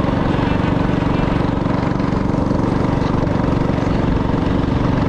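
TrailMaster Hurricane 200's engine running at a steady speed while cruising, heard from on board.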